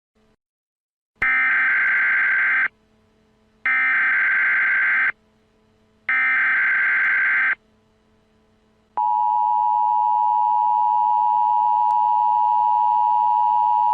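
Emergency Alert System SAME header: three identical bursts of digital data tones, each about a second and a half long and a second apart. About nine seconds in, the steady two-tone EAS attention signal (853 and 960 Hz together) starts; it marks the start of a new alert.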